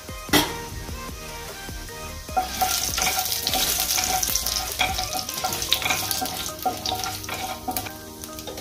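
Mustard seeds and urad dal sizzling in hot oil in a nonstick kadai, the frying hiss swelling for a few seconds from about two and a half seconds in as a wooden spatula stirs them, then settling. A short knock near the start.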